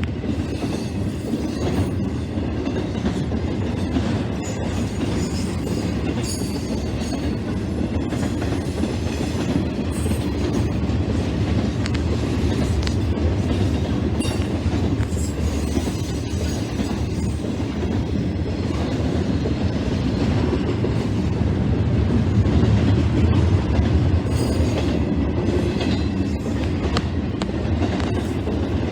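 A train's cars rolling past in a steady, continuous rumble, wheels clicking and clattering over rail joints, with faint high wheel squeal at times.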